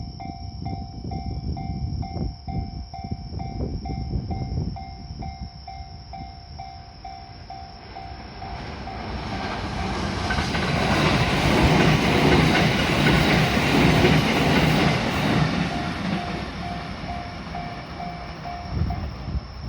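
Railway level crossing alarm ringing with a steady repeating ding, about two a second, while a train passes through the crossing. The train's rumble builds to a peak about two-thirds of the way through and then fades, and the alarm stops near the end.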